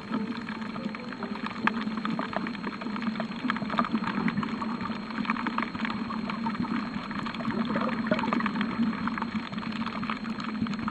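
Underwater sound on a coral reef: a steady low hum with dense, irregular crackling clicks.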